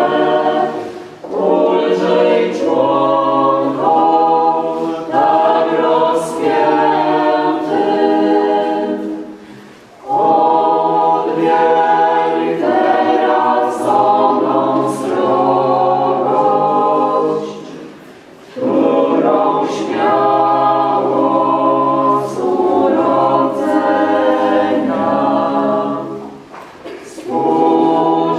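Choir singing in long sustained phrases, with short breaks between phrases about every eight seconds.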